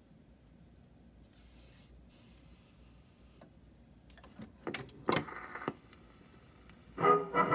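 A 78 rpm record slid into the slot of a Philco 49-1401 slide-in phonograph with a faint rustle, then the player's mechanism clicking and clunking a few times as it takes the record. About seven seconds in, the record's brass-band music starts through the set's speaker.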